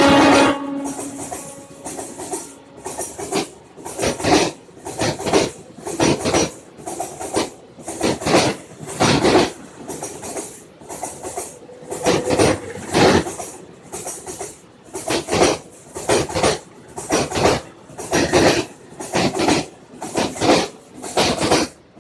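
Indian Railways blue passenger coaches passing at speed, their wheels clacking over the rail joints in regular double beats about once a second, with a hiss of wheel-on-rail noise in each beat.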